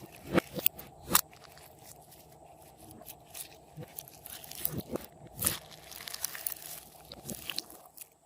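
Slime being kneaded and squeezed by hand, giving a scatter of sharp pops and crunchy crackles, the loudest near the start and around the middle.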